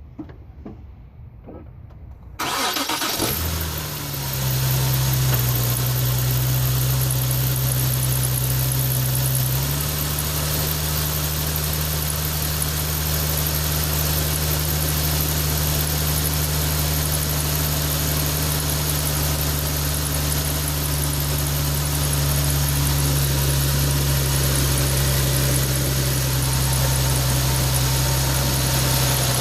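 Nissan 370Z Nismo's 3.7-litre V6 starting a little over two seconds in, then running at a steady fast idle with a high screech over the engine. The idle steps slightly about ten seconds in. The owner cannot place the screech, which is on the passenger side only, and suspects a belt or valve.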